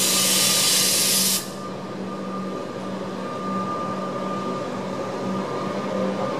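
Loud hiss of compressed air vented from a standing Melbourne suburban electric train's pneumatic system, cutting off abruptly about a second and a half in. A low steady hum continues underneath.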